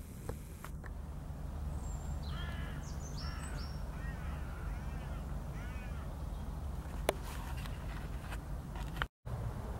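Crow cawing, a series of harsh repeated calls between about two and six seconds in, over a low steady rumble.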